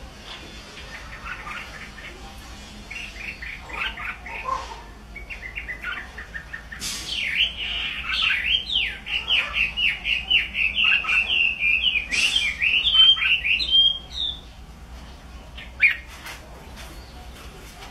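A caged Chinese hwamei singing. It opens with soft, short warbling phrases, then about seven seconds in breaks into loud, fast, varied song. The song stops abruptly about fourteen seconds in, and one brief note follows near the end.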